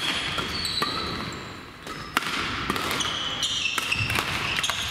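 Badminton rally on a gym court: rackets crack against the shuttlecock again and again, the sharpest hit about two seconds in, and court shoes give short high squeaks on the floor in between.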